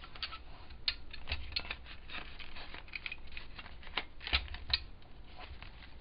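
Stiff paper rustling and tapping against a plastic paper crimper as a paper bag is lined up and pushed into it, with scattered light clicks and a slightly louder knock a little after four seconds.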